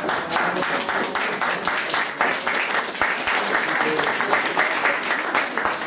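A room of guests clapping: dense, steady applause.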